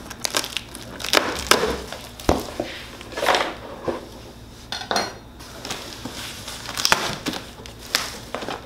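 Cardboard shipping box being opened by hand: packing tape slit and pulled off, then the cardboard flaps folded back, giving irregular scrapes, rustles and crinkles, with one sharp knock a little over two seconds in.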